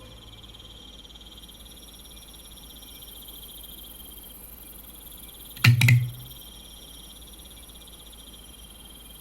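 Faint, steady, high-pitched pulsing ambience, broken about five and a half seconds in by a sudden loud double thump with a deep low end: a horror-film sound effect.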